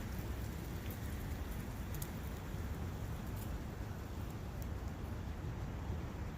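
Forest ambience near a brook: steady wind noise with a low rumble, and a few faint high ticks.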